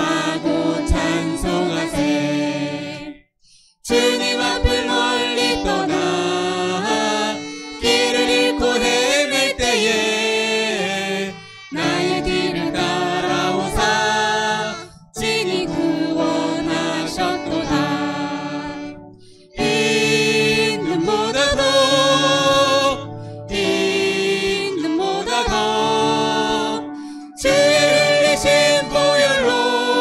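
A worship band performing a Korean hymn: a man and a woman sing the melody into microphones over acoustic guitar, violin and keyboard. The song moves in sung phrases with short breaks between them.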